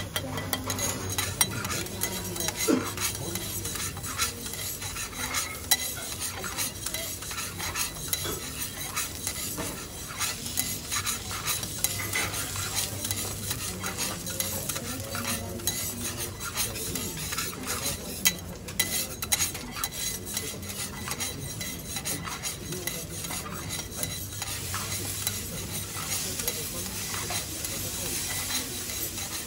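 Two steel spatulas scraping and clicking on a flat steel teppanyaki griddle while a small pile of finely chopped food sizzles in oil and is tossed until golden. There is a steady sizzle with frequent short metal taps and scrapes throughout.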